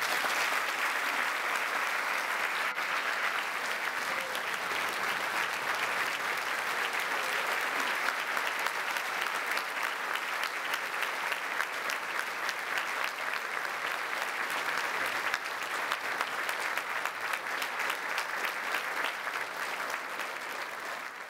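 Large audience applauding, a dense steady clapping that fades out at the very end.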